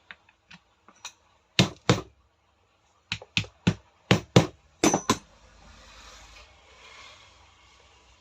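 Sharp clicks and knocks of the selector knob being fitted onto a 2-20 rotary hammer's housing: a few light clicks, two loud knocks, then a quick run of about eight knocks, followed by faint rustling.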